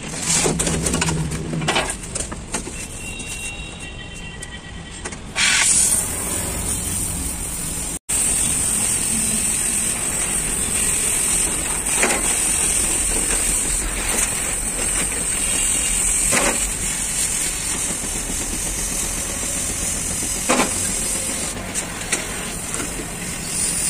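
Oxy-fuel gas cutting torch hissing steadily as it cuts a steel sheet, starting about five seconds in, with a few sharp ticks along the way. Before the hiss starts there is some scattered knocking.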